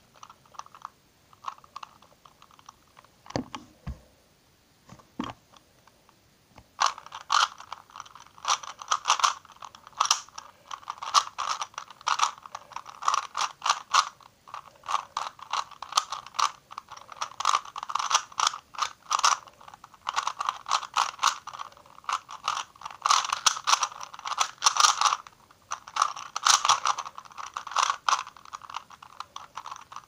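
3x3 Rubik's cube being turned by hand to solve it: plastic layers clicking and scraping. A few single clicks in the first few seconds, then fast, near-continuous turning in uneven runs from about seven seconds in.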